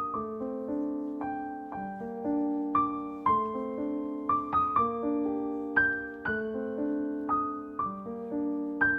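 Gentle background piano music: single notes struck at a slow, even pace over held chords, each note fading after it is struck.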